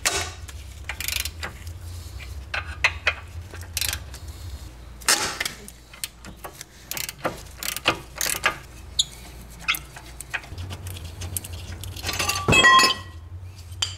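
A wrench clicking and steel brake caliper parts clinking as the caliper mounting bolts are undone and the caliper is taken off the knuckle. Near the end comes one loud metal clank with a brief ring.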